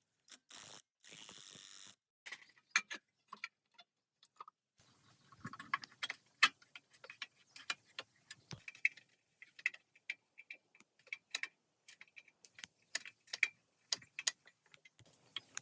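Small metal parts and hand tools clicking and clinking in scattered taps and light ticks, with a brief hiss about a second in.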